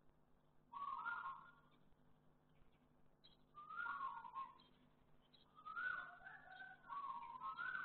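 A cat meowing out of sight: four drawn-out meows, each rising and falling in pitch, spaced irregularly over several seconds.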